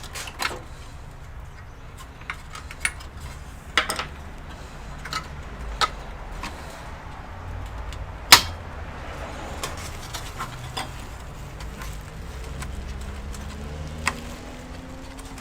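Scattered clicks and taps of a RAM module and computer parts being handled, as a memory stick that was not properly seated is taken out and refitted. One sharp click a little past the middle is the loudest, over a low steady hum.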